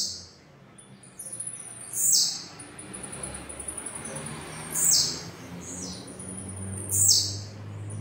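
Blue-black grassquit (tiziu) singing. It gives three short, high, buzzy notes that drop in pitch, about two and a half seconds apart. Each is led in by a thin, high, held note.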